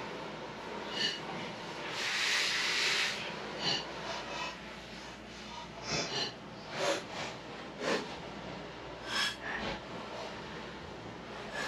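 Ground venison sizzling steadily as it browns in a stainless steel pot, with a louder hiss for about a second near two seconds in. Several sharp clicks and knocks of bottles and utensils are set against it.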